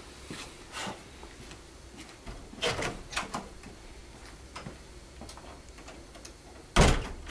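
Front door being unlocked and opened: a cluster of metallic clicks from the key in the lock and the handle latch about two and a half seconds in. A loud thud comes near the end.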